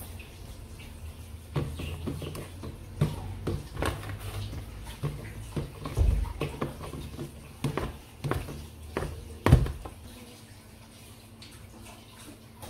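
A metal spoon stirring thick, runny blended-bean batter in a plastic bucket: wet sloshing with irregular knocks of the spoon against the bucket, the loudest a thump a little before the end. The stirring dies down for the last couple of seconds.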